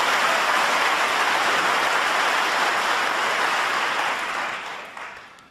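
Snooker audience applauding a successful long pot, steady at first and dying away near the end.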